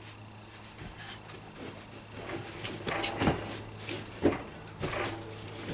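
A few knocks and scraping, rattling handling sounds, the loudest about three, four and five seconds in, over a steady low hum.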